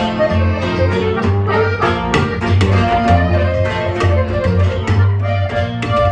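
A live corrido group playing an instrumental introduction: accordion melody over strummed acoustic guitar and a plucked upright bass keeping a steady pulsing bass line.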